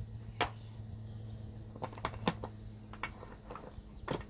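Metal tobacco tins being handled and shuffled in a storage box: a few light, sharp clicks and taps, more of them toward the end, over a steady low hum.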